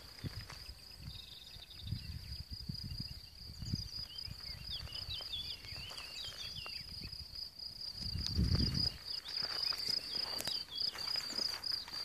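Insects chirring steadily at a high pitch in a sunny meadow, with a few short bird chirps in the middle. Low thuds of noise on the microphone come and go, the loudest about eight seconds in.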